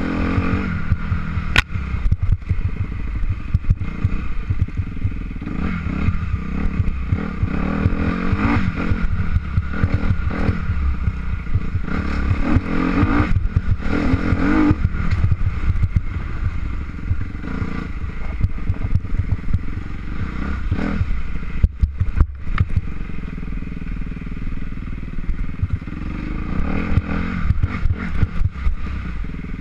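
An engine running continuously, its revs rising and falling, with rattling and clatter throughout.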